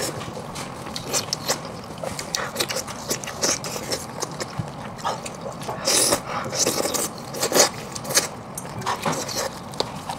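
Close-miked eating: chewing and wet mouth smacks as meat is bitten and pulled from a cooked sheep's head. Many short clicks and crackles throughout, loudest about six to seven and a half seconds in.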